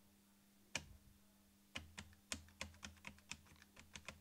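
Keys of an Amstrad NC100 notepad computer's keyboard being pressed to type numbers: a single keystroke about a second in, a pause, then a quick run of key taps, several a second, to the end.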